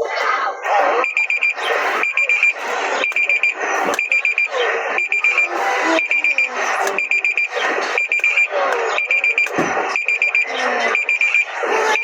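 Emergency alert system alarm: short bursts of rapid, high-pitched beeps repeating about once a second, over a dense, changing lower sound.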